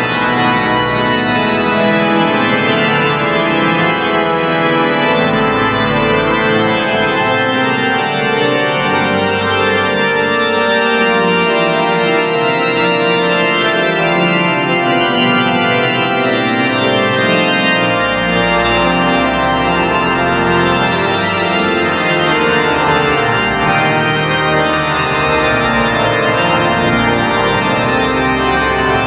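Organ playing a many-voiced piece at steady full volume, with deep pedal bass notes entering and dropping out several times.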